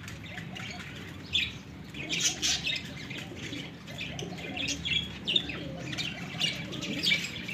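Birds calling in short high chirps and squawks, one every second or so, with faint low cooing from domestic pigeons beneath them.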